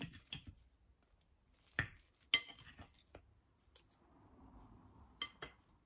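Knife and fork cutting through a stack of pancakes, with several separate clinks of metal cutlery against a plate.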